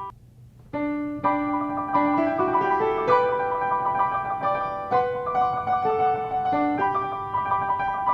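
Piano music: sustained notes changing every half second or so. It cuts out right at the start and comes back just under a second in.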